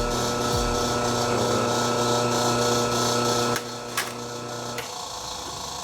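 Electric motor of a clipper-blade sharpening machine running with a steady hum, which drops off about three and a half seconds in, followed by a sharp click.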